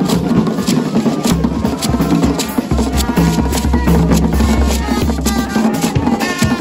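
Marching brass band playing: marching drums beat out a steady rhythm under trombones and trumpets.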